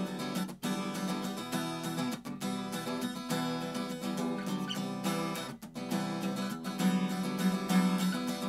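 Beat-up Stagg acoustic guitar, strung partly with electric-guitar strings, strummed through a chord riff, with short breaks at a few chord changes.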